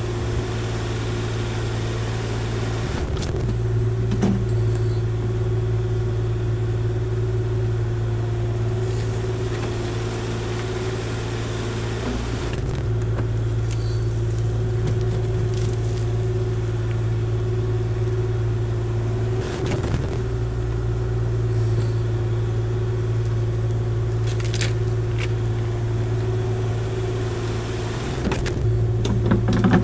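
Kubota KX040-4 mini excavator's diesel engine and hydraulic forestry mulcher head running steadily while mulching brush: a constant low hum with a steady higher whine above it. Brief clatters come four times as the head chews through material.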